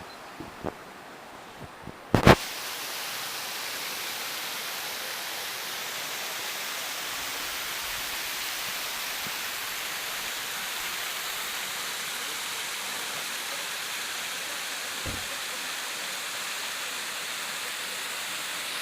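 Water of the Bigăr waterfall falling and splashing, a steady rushing noise. Before it sets in, a few light clicks and a sharp knock about two seconds in.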